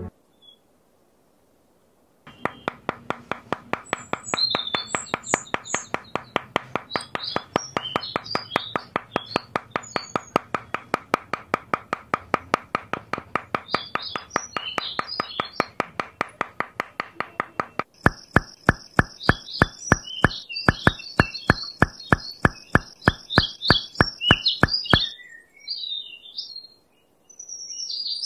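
Birds chirping over a steady, rapid clicking beat of about four clicks a second. About two-thirds of the way through, the clicking changes to sharper, louder clicks about three a second, which stop shortly before the end.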